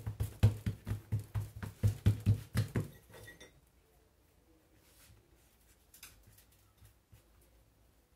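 A palm patting and flattening a piece of soft brioche dough on a kitchen countertop: quick soft thumps, about three a second, that stop about three seconds in. Only faint handling sounds follow while the dough is rolled up.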